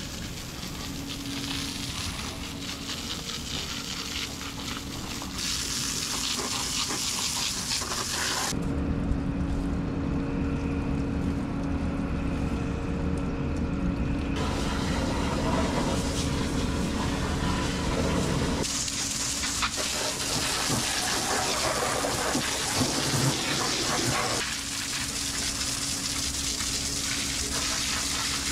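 Water spraying hard to rinse dirt out of a skid steer's cab and foot-pedal area, a steady hiss that changes abruptly several times, with a faint steady hum beneath in parts.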